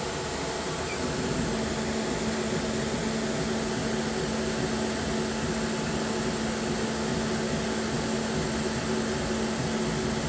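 Steady whir of a laser engraver's exhaust fan. A constant low hum joins it about a second in.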